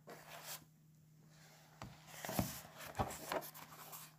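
Paper and a paperback book being handled: a brief rustle of a sheet at the start, then soft rustles and a few light knocks as the book is laid open.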